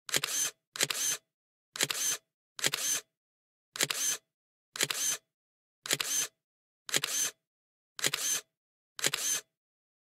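Camera shutter click sound effect, repeated ten times, roughly once a second.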